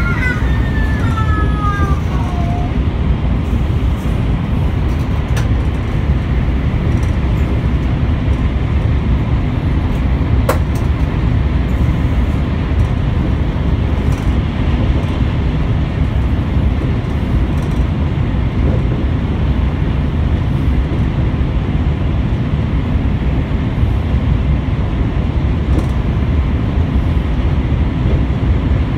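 Steady low rumble and rush of a high-speed train at speed, heard from inside the passenger carriage: wheels on rail and air noise, with one sharp click about ten seconds in.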